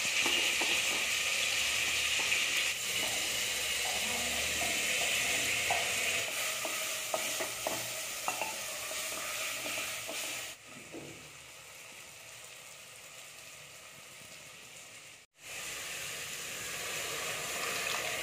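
Baby corn and carrot pieces sizzling as they fry in oil in an open pressure cooker, stirred with a wooden spatula that ticks and scrapes against the pot. The sizzle drops off sharply about ten seconds in, cuts out for an instant a few seconds later, then goes on more quietly.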